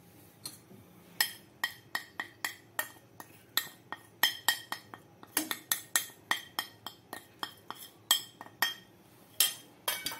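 Quick, irregular clinks of dishware against a stainless steel pressure cooker as spices are knocked off a plate into it, about three a second, each with a short metallic ring.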